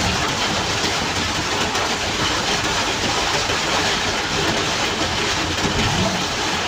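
Heavy rain on the windscreen and cab of a moving Suzuki New Carry pickup, mixed with tyre spray and road noise, heard from inside the cab as a steady hiss.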